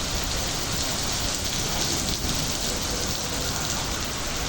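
Heavy rain falling and pattering on surfaces, a steady, even hiss.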